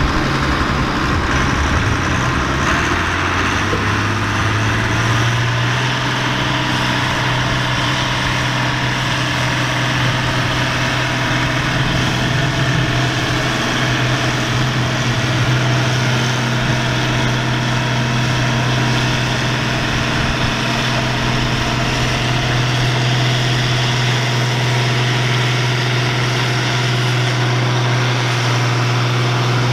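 Allis-Chalmers 200 tractor's diesel engine working hard under load while pulling the sled. Its pitch climbs over the first few seconds, then holds steady.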